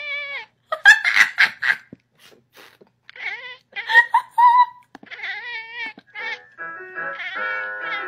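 A cat meowing in short, bending calls over background music.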